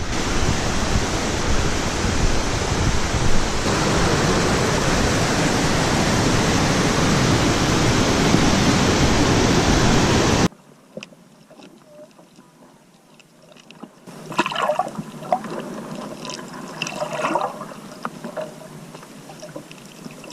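Waterfall rushing loudly and steadily, cut off abruptly about ten seconds in; a much quieter stretch follows with scattered small splashes and trickling water.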